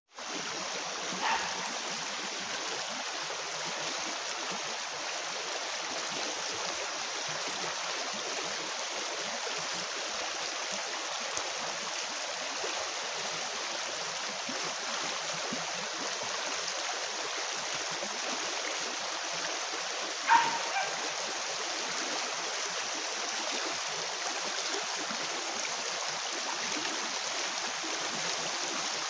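Shallow river running over a rocky bed: a steady rush of water. Two short sharp sounds cut through it, one about a second in and a louder one at about twenty seconds.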